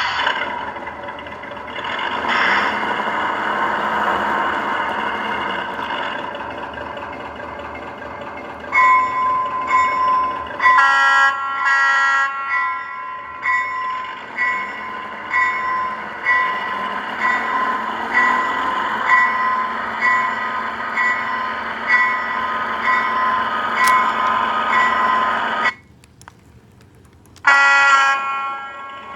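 Brass O-gauge doodlebug model running with its onboard sound playing: an engine rumble, then a few horn blasts about nine seconds in. Short horn-like tones follow, repeating a little more than once a second. The sound cuts out briefly near the end, then another horn blast.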